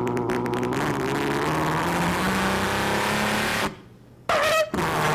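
A man's voice imitating a truck engine into a microphone: a steady engine drone that climbs slowly in pitch for about three and a half seconds, cuts off briefly, then a short rising rev before the engine drone resumes.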